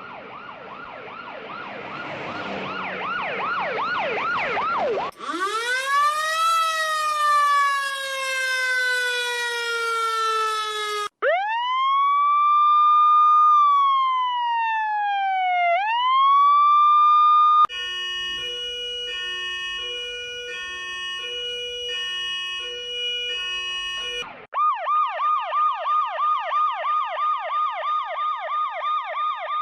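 Emergency-vehicle sirens (police, ambulance and fire truck) playing one after another in several patterns. First a fast warbling yelp that grows louder. Then a siren that winds up and slowly falls, a smooth electronic wail that rises, holds, falls and rises again, and a two-tone hi-lo siren alternating between two pitches, ending in a fast yelp of about three rising sweeps a second.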